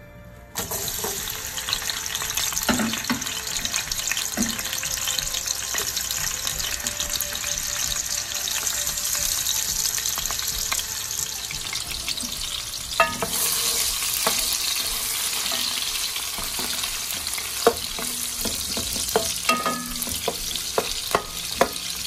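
Sliced onions frying in hot oil in an aluminium pot. A loud burst of sizzling starts suddenly about half a second in as the onions go into the oil, then holds as a steady sizzle. From about halfway a wooden spoon stirs, with scattered knocks against the pot.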